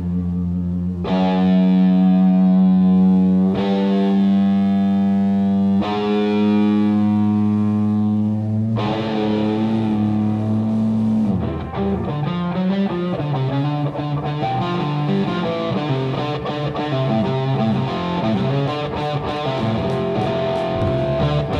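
Live blues-rock band from a soundboard recording, playing without vocals. Distorted electric guitar holds long sustained chords that change every two or three seconds, then breaks into busier playing about halfway through.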